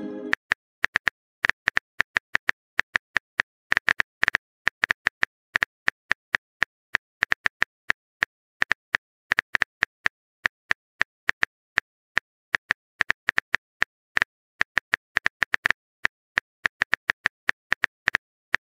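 Smartphone keyboard typing sound effect: short, sharp taps in quick, uneven runs, as a text message is being typed.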